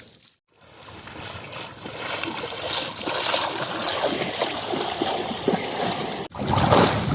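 Water splashing and sloshing in a river: a steady wash with many short, irregular splashes. The sound cuts out briefly just after the start and again for an instant near the end.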